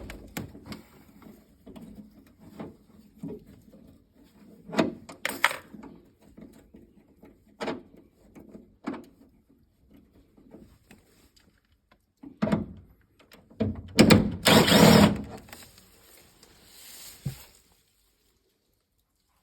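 Scattered knocks and clicks of tools and metal parts being handled during bolt removal, with a loud rattling burst of about a second and a half around fourteen seconds in.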